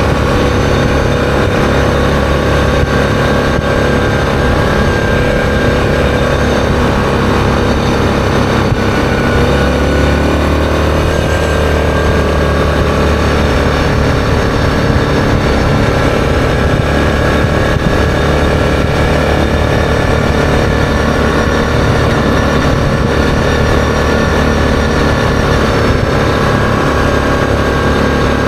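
ATV engine running steadily while riding along a road, heard from a camera mounted on the machine. Its note shifts about ten seconds in.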